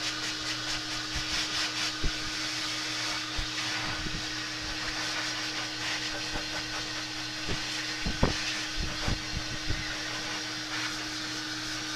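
Hair dryer running steadily, a constant hiss of blowing air with a steady motor hum, drying a wet puppy's coat. A few soft knocks come about eight seconds in.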